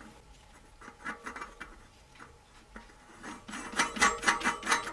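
Bicycle disc brake rotor and its small bolts being fitted onto the wheel hub by hand: light metal ticks and clinks, sparse at first, then a quick burst of clicks and rattles over the last second and a half.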